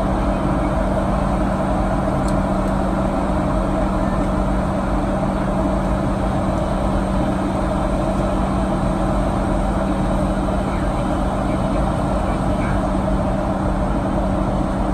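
Steady cabin noise of a Boeing 737-800 in flight, heard from a window seat over the wing: an even rush of airflow and engine noise from its CFM56-7B turbofans, with a steady low hum.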